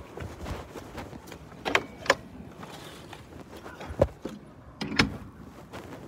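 Handling noise from a phone held with fingers over the lens: low rubbing with a few sharp knocks, two close together about two seconds in and two more around four and five seconds.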